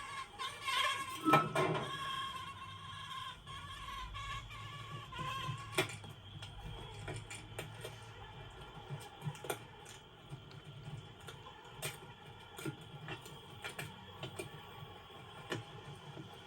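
Film sound effects: creature-like calls during the first few seconds over a low steady hum, then scattered sharp clicks and taps.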